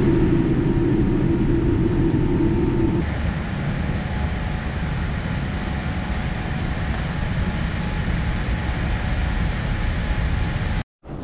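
Jet airliner cabin noise: the engines and rumble of the aircraft on the runway, heard from inside the cabin. About three seconds in it changes to a steadier, slightly quieter cabin hum.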